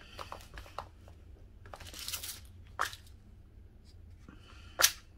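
Handling of a small plastic compartment box of copper jump rings: light plastic clicks and a brief rustle of loose metal rings about two seconds in, with a sharp click near the end the loudest.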